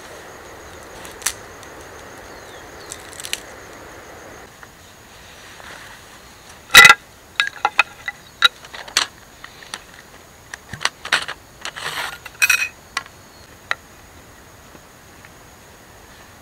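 Cut wooden poles knocking and clattering against each other as they are handled and laid out on the forest floor: a run of sharp hollow knocks, some with a brief ringing pitch, the first the loudest.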